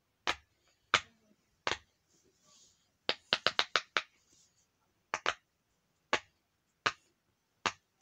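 Orange silicone push-pop fidget toy having its bubbles pressed by a finger, each one giving a sharp pop. A few spaced pops come first, then a quick run of about six a little past the middle, then a pair and a few single pops.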